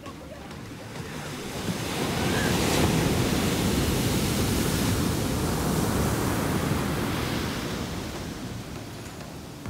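Ocean surf on a sandy beach: a large wave breaks close to shore, its noise building over a couple of seconds, holding, then easing off as the foam washes up the sand.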